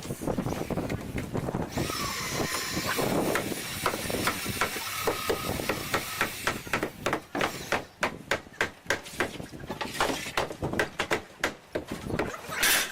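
Tools striking wood on a log build, a run of sharp uneven knocks that come thick and fast in the second half. An earlier stretch carries a steady hiss.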